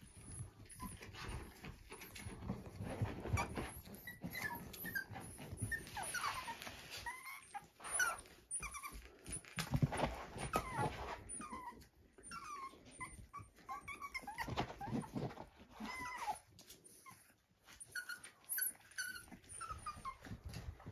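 Young puppies whimpering and squeaking in many short, high calls as they play together, over scuffling and rustling on bedding.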